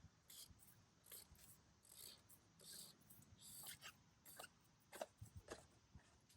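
Faint scattered clicks and short scrapes of an oil filter housing cap being worked loose and unscrewed anti-clockwise by hand.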